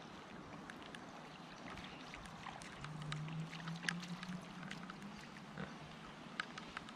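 Light rain falling on a river and on the kayak, with scattered drops ticking close by throughout. A low hum joins in about three seconds in and fades out a couple of seconds later.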